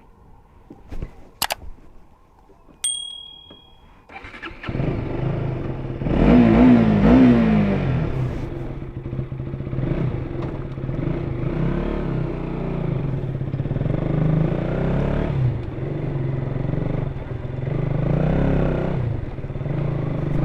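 KTM RC 200's single-cylinder engine on its stock exhaust, starting up about four seconds in after a few clicks and a short beep. It is revved once shortly after starting, then idles with light throttle blips.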